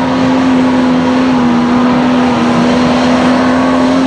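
A lifted Jeep Wrangler's engine held at high, steady revs as the Jeep pushes through a mud pit, its pitch barely wavering.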